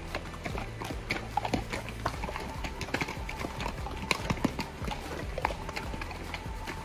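Hooves of saddled mules clip-clopping on a dirt-and-rock trail as a string of ridden mules walks past, in irregular knocks.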